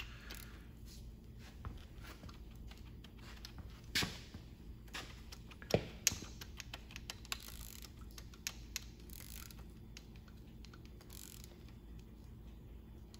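Scattered light metallic clicks and taps, with a few louder ones about four and six seconds in, from a rocker arm nut being turned and its pushrod wiggled on a small-block Chevy 350 valvetrain. The pushrod is being checked for up-and-down slop to find zero valve lash.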